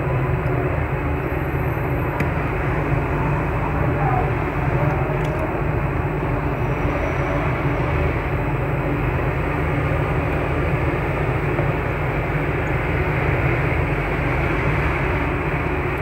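Steady, even background noise with no distinct knocks or clicks standing out.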